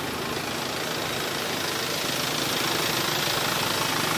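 Motorcycle engine running steadily at low speed, ticking over as it rolls through the market, with a slight rise in level in the second half.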